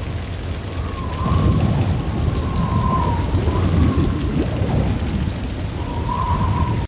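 Rain with a long low rumble of thunder that swells about a second in, and a faint wavering whistle-like tone above it.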